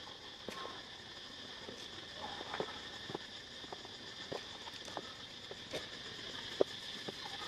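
Outdoor ambience: a steady high-pitched insect drone with scattered light taps and rustles, one sharper tap near the end.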